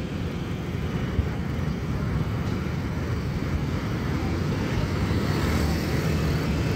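Steady wind rumble on the microphone with engine and road noise, recorded while riding a motorcycle through city traffic.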